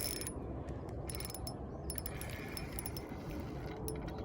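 Ultralight spinning reel being cranked to reel in a hooked fish, its gears giving a quick, uneven clicking.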